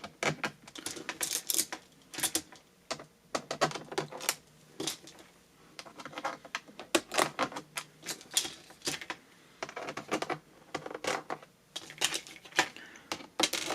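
Small screws being driven back into a laptop's bottom cover with a small screwdriver: a string of light, irregular clicks and ticks.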